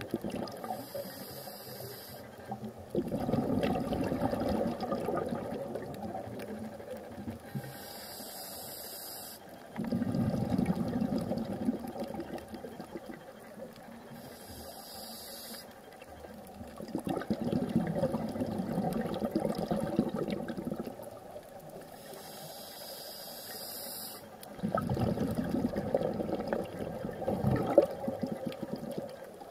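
Scuba diver breathing through a regulator, heard underwater: a short hissing inhale, then a longer, louder gurgle of exhaled bubbles. The cycle repeats about every seven seconds, four times.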